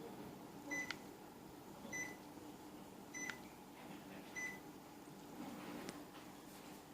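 Panasonic CS-YN9RKJ air conditioner giving four short high beeps, about a second apart, over a faint steady hum, with a few soft clicks in between.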